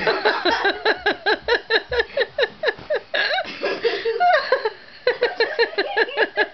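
A person laughing hard: a fast, steady run of short laughs, about six a second, breaking for a breath about four and a half seconds in.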